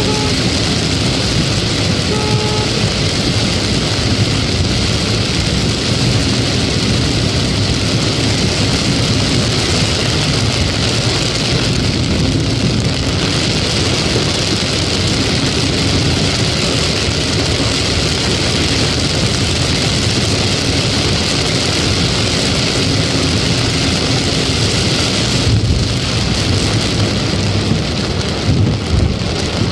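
Heavy rain falling on a moving car, heard from inside the cabin, mixed with tyre hiss on the wet road and engine noise as one loud, steady wash. Two short beeps come near the start.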